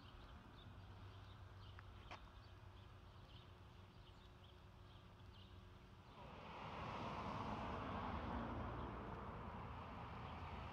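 Faint outdoor street ambience: small high bird chirps come and go over a low hum, then a louder steady rushing noise sets in about six seconds in.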